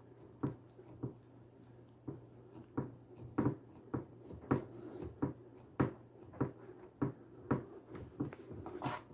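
A mounting screw being driven by hand, with a short click at each turn of the screwdriver, about three every two seconds. A faint steady hum sits underneath.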